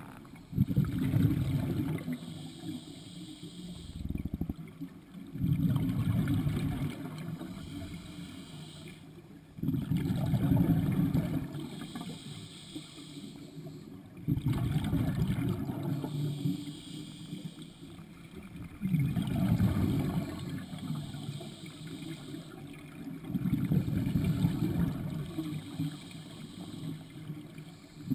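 Scuba diver breathing through a regulator underwater: a short hiss on each inhale, then a loud bubbling rush of exhaled air on each exhale, repeating about every four and a half seconds.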